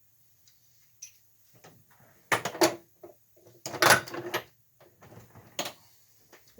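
Metal hand tools clattering and clanking as they are handled, in short bursts about two and a half and four seconds in, and once more near the end.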